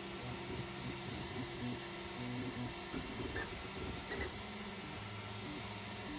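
Voron V0.1 3D printer printing: its stepper motors sing in short tones that jump in pitch every fraction of a second as the toolhead moves, turning to longer, steadier tones in the last couple of seconds, over the steady hiss of the cooling fans.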